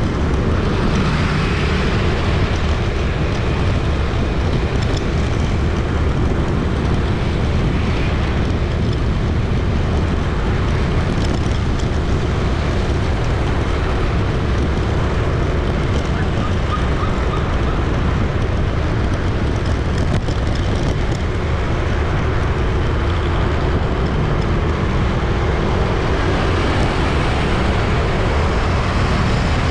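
City street traffic: a steady, dense din of passing vehicle engines and tyres.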